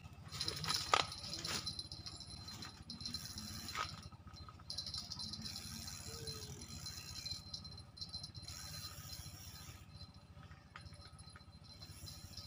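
Fishing reel being cranked in stretches, a high rattling whir that starts and stops, as a hooked fish is reeled in. A few sharp crackles of footsteps through undergrowth come in the first couple of seconds.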